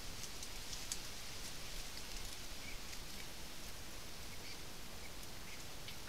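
Faint rustling and scattered soft ticks at a little bittern nest in reeds, as the adult feeds its chicks, over a steady hiss.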